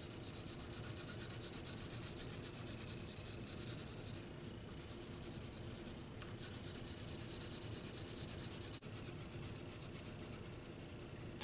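Graphite pencil shading on paper: rapid back-and-forth scratchy strokes, briefly pausing a couple of times.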